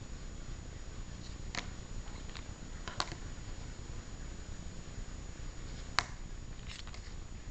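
Hard plastic trading-card holders clicking as they are handled and set down on a wooden table: about five short, sharp clicks, the loudest about six seconds in, over a steady low hiss.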